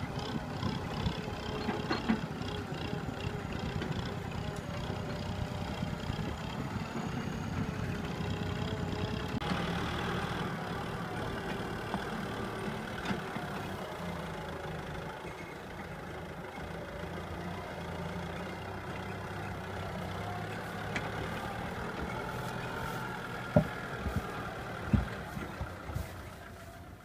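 Farm tractor's diesel engine running steadily as it tows a loaded trailer of rice sacks. A few sharp knocks come near the end.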